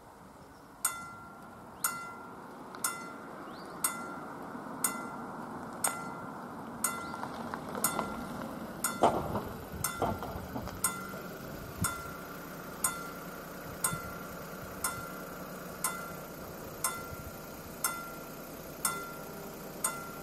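Level crossing warning bell starting about a second in and striking steadily about once a second, each strike ringing briefly: the crossing has been activated for an approaching train. A brief rush of noise sounds about nine seconds in.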